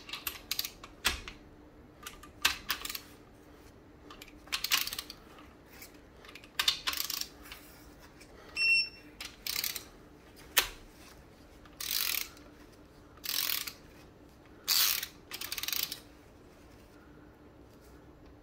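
Ratchet of a digital torque wrench clicking in short runs every second or two as the crankshaft bearing-cap bolts on a BMW M54B30 inline-six block are brought up to a first torque stage of 20. One short electronic beep sounds about nine seconds in.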